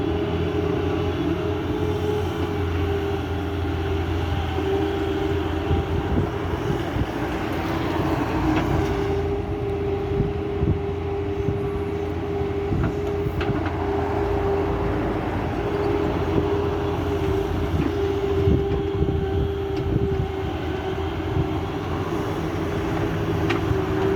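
Excavator's diesel engine running steadily under load, with a steady whine over its low drone and a few sharp knocks.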